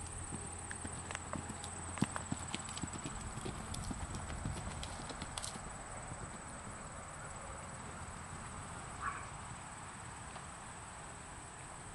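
Hoofbeats of a ridden horse on grass and dirt, a quick irregular patter of thuds that is clearest early on and grows fainter as the horse moves away.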